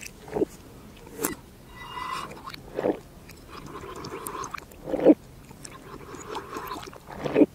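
Close-miked ASMR drinking: juice sucked through the hollow glass tail of a bird-shaped glass, with a loud gulp about every two seconds, five in all.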